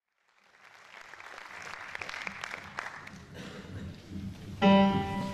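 Scattered audience applause dying away, then about a second before the end a single instrument note starts sharply and holds: the opening of the accompaniment.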